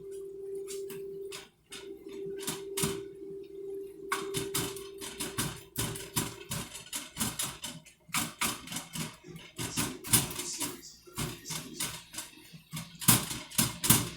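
Kitchen clatter: a utensil tapping and scraping against pans or food containers in many quick clicks and knocks, busier from about four seconds in. A steady hum runs underneath and fades out about six seconds in.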